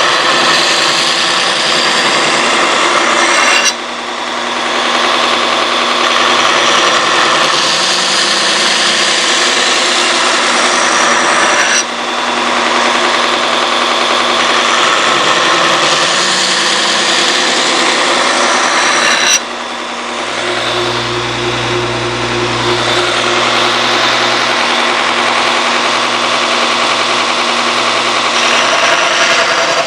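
Electric grinder running steadily as steel is ground against it, a motor hum under a harsh grinding noise. It breaks off abruptly three times and comes straight back.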